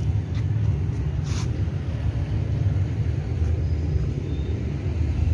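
A steady low rumble, with a short rustle about a second in.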